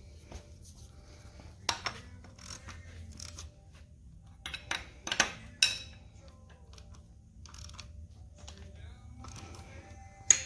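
Steel hand tools clinking against the camshaft gear and cylinder head of a Hyundai 2.7L V6 as a wrench and a gear-holding pliers are fitted to loosen the cam gear bolt. There are sharp metal clinks about two seconds in, a cluster around five seconds, and another near the end.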